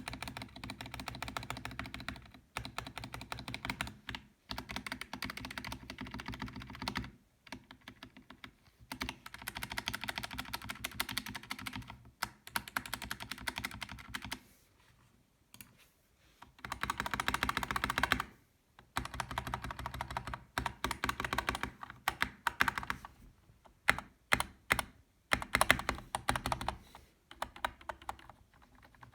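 Typing on a Kemove DK61 Snowfox mechanical keyboard with linear Gateron Red switches and stock stabilizers: runs of rapid keystrokes broken by short pauses, with a few louder single strokes near the end.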